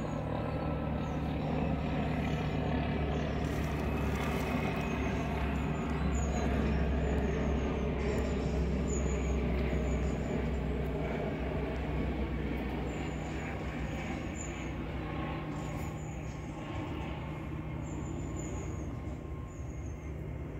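Class 37 diesel locomotive's English Electric V12 engine running steadily in the distance, a low constant drone. It is louder in the first half and eases off later.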